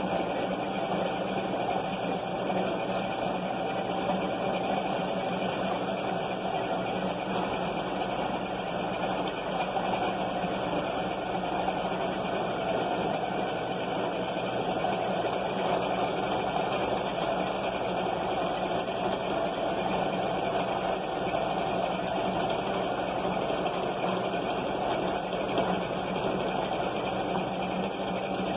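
Electric motor of a kite-line winding machine running steadily, spinning a spool as it winds kite line, with an even hum.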